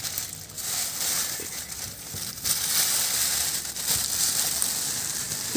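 Thin clear plastic bag crinkling and rustling as it is handled.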